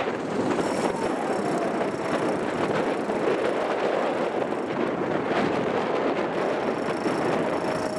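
Off-road 4x4's engine running steadily at low revs as the vehicle crawls through a deep rut.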